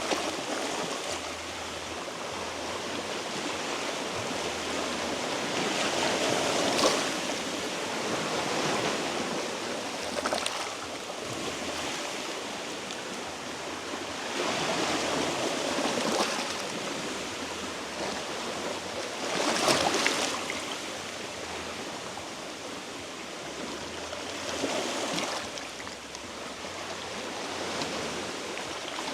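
Small sea waves washing and splashing against shoreline rocks, swelling and easing every few seconds.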